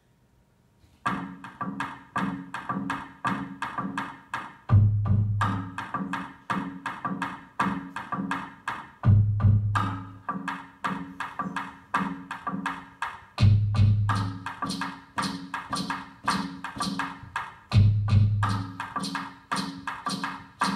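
A looped percussion rhythm starts about a second in: a quick clicking beat with short low pitched notes, and a deep bass hit that returns about every four and a half seconds as the loop cycles.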